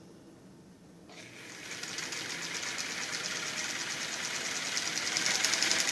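Early electric Singer sewing machine starting up about a second in and stitching, its motor and needle mechanism running with a fast, even rhythm that speeds up and grows louder as the pedal is pressed toward wide open. It runs quietly, with no rattle.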